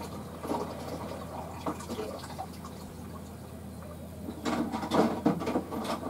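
Water splashing and sloshing as two African elephants wrestle in a river, in irregular bursts with a louder flurry of splashes about four and a half seconds in.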